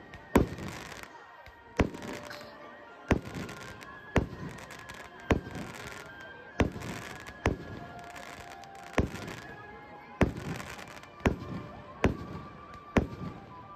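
Aerial fireworks bursting overhead: about a dozen sharp bangs, roughly one a second, each followed by a brief crackle of burning stars.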